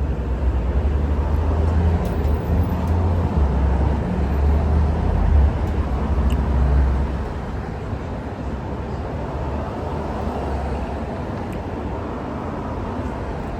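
Steady low rumble of a car on the move, heard from inside: heavy and uneven for the first seven seconds or so, then settling to a lower, even hum.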